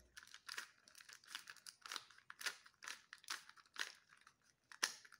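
Plastic Rubik's cube layers being twisted by hand, a quick, uneven run of dry clicks, two or three a second, as the final algorithm is repeated to finish the solve.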